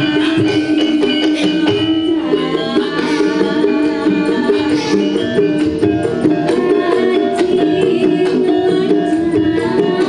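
Live campursari music played over a PA: a Javanese gamelan ensemble with hand drums and keyboard keeps a steady rhythm while a woman sings into a microphone.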